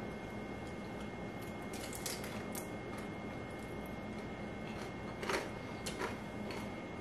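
A man biting into and chewing a cheese-topped barbecue stuffed shell: a few short, soft mouth and handling noises, the clearest about five seconds in, over steady room hiss with a faint high steady tone.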